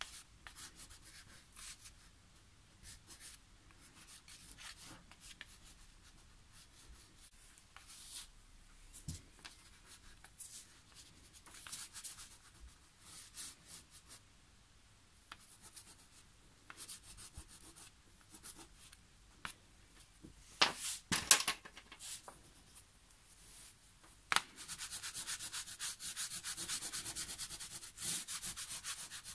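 Wax crayon scratching across paper in many short strokes, with a louder flurry of strokes about two-thirds of the way in, then a steadier, louder rubbing on the paper over the last few seconds.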